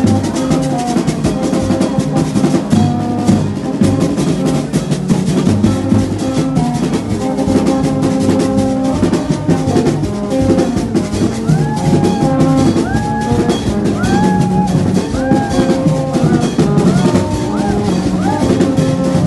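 Percussion-heavy music with a fast, dense drum beat. From a little past halfway, short gliding notes rise and fall over the drumming.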